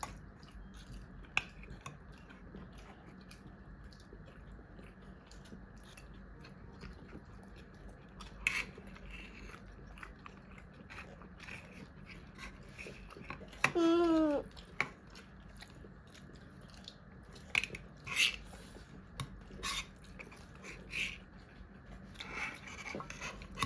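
Eating at a table: chewing and biting with scattered small clicks. About 14 s in comes a brief wordless voice sound that dips slightly in pitch.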